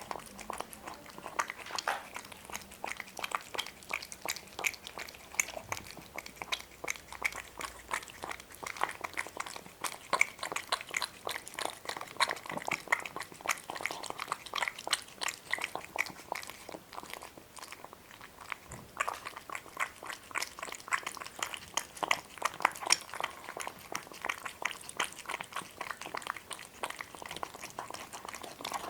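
An animal eating, with fast, steady chewing and smacking clicks.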